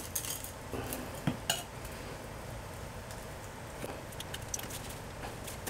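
Metal scraper blade scraping old wax off a toilet drain flange, with a few sharp clicks of the blade on the flange in the first second and a half, then softer, fainter scraping.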